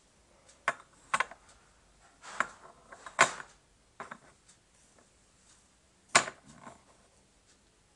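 Small plastic cups clacking against each other and on a tabletop as they are handled and stacked: a handful of sharp knocks at irregular intervals, the loudest about three and about six seconds in.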